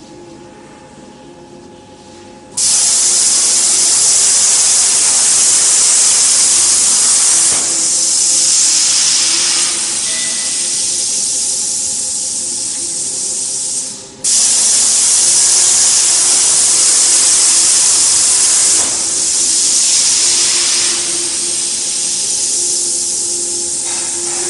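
A CNC plasma cutter's torch arc hissing loudly as it cuts. It starts abruptly a couple of seconds in, cuts off sharply about halfway through and restarts almost at once. A faint steady machine hum runs underneath.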